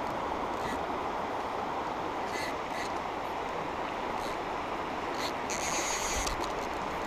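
Steady rush of a shallow trout river running over a rocky riffle, with a few brief whirring bursts from a fly reel as line is reeled in, the longest near the end.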